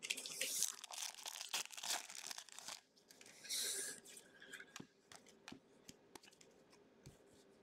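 A trading card pack wrapper being torn open and crinkled for about three seconds, with another short rip a little later, then light clicks of cards being handled.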